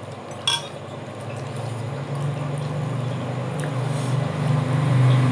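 A vehicle's low engine hum, growing steadily louder as it approaches. A single light clink about half a second in.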